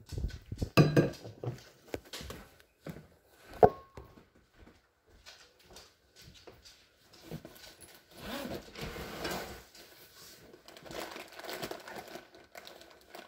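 Handling noise from a phone being moved and set down: a few sharp knocks and bumps in the first four seconds, then quieter rustling and shuffling.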